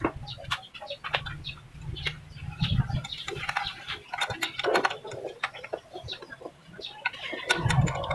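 Scattered clicks and light knocks of hands handling a plastic radiator fan blade and its surroundings in an engine bay, with short calls in the background and a low rumble that comes and goes.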